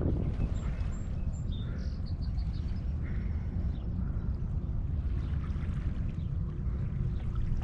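Steady low rumble of wind on the microphone at the shoreline, with a few faint high bird chirps in the first three seconds.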